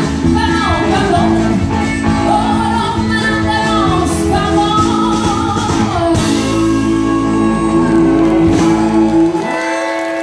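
Live band playing amplified: a female vocalist singing over electric guitar, bass guitar and drums, ending on a long held chord. The music stops about nine seconds in.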